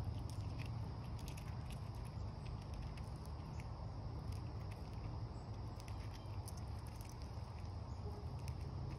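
Eastern chipmunk eating black sunflower seeds close to the microphone: an irregular run of small crisp clicks and crackles as it picks through and cracks the seed shells. A steady low rumble runs underneath.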